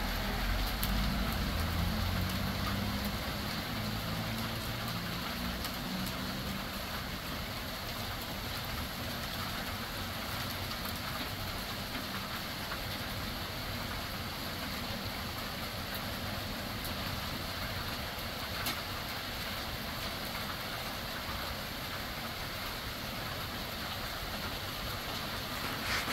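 Heavy hail falling, a dense steady hiss of pellets pattering on railings, roofs and ground, with scattered sharper ticks. A low rumble sits under it for the first few seconds, then fades.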